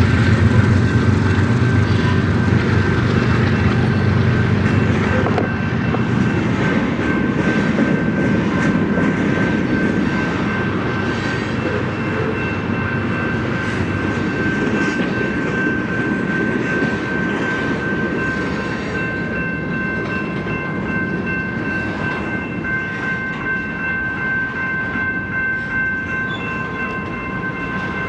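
Freight train rolling past: a heavy low rumble that eases over the first several seconds, then the cars' wheels running steadily on the rails with light clicking and a steady high-pitched ring or squeal from the wheels.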